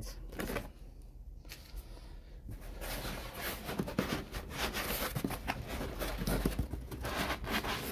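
Hands rummaging in a cardboard box of foam packing inserts: foam rubbing and scraping and a bundle of cables being shifted, making irregular rustles and soft knocks. The handling gets busier after a couple of seconds.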